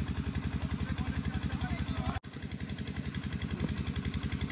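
An engine running steadily close by, a rapid even low throb of about a dozen pulses a second. The sound drops out for a split second about two seconds in.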